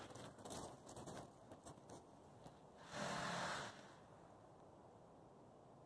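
A single short breathy huff close to the microphone, about three seconds in, after some faint rustling and handling clicks.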